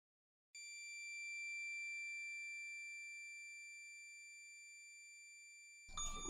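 A faint, high, bell-like chime ringing several pitches at once, setting in about half a second in, swelling briefly and then slowly dying away without changing pitch. A burst of noise begins just before the end.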